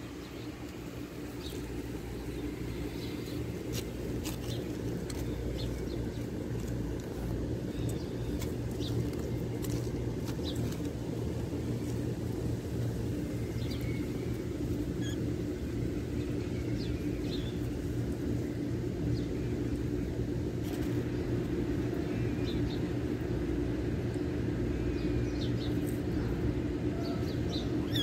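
Steady low engine or motor hum, holding a constant level, with faint short high chirps scattered through it.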